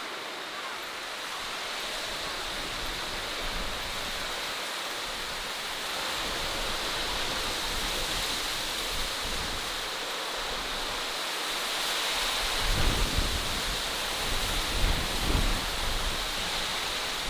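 Steady rushing outdoor ambience, a hiss with no pitch to it. About two-thirds of the way in, low gusts of wind buffet the microphone for a few seconds.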